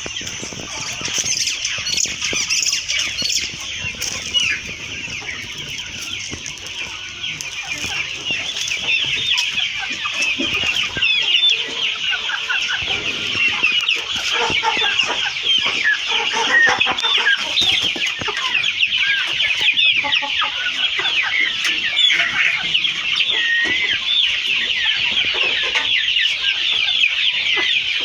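Flock of kienyeji chickens calling together: a dense, continuous chorus of many overlapping short, high chirps, getting louder from about eight seconds in.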